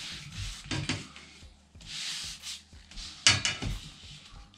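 A long aluminium ruler sliding and scraping across a vinyl sheet on a cutting mat as it is shifted into place, with a few light knocks and one sharp clack a little over three seconds in as it is set down.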